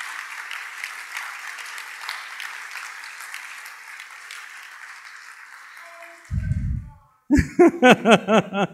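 Audience applauding, the clapping gradually dying away over about six seconds. A brief low thump follows, then a man starts speaking near the end.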